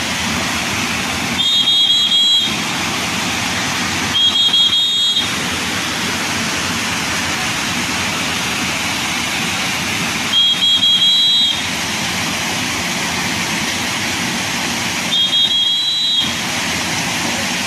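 Steady rush of fast-flowing floodwater, with four short high-pitched two-tone beeps, each about a second long, sounding over it at irregular intervals.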